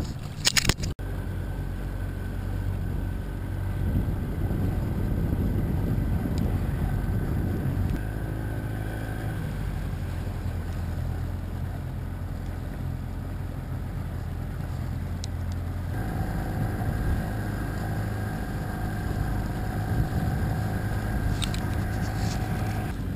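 Outboard motor of an inflatable support boat running steadily under way, its note shifting a couple of times as the throttle changes, with water and wind noise beneath. A few sharp knocks in the first second.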